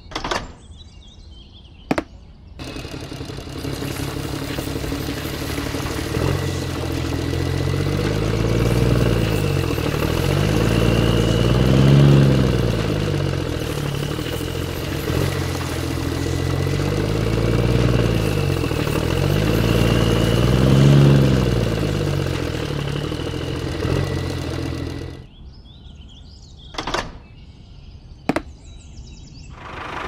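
Tractor engine running from about two seconds in, its pitch rising and falling as it revs up and down several times, loudest in two swells, then stopping near the end; a few clicks before and after.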